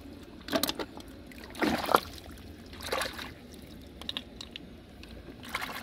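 Hands splashing and scooping in shallow muddy water while picking up snails and clams, with about four short splashes and sloshes; the loudest comes about two seconds in.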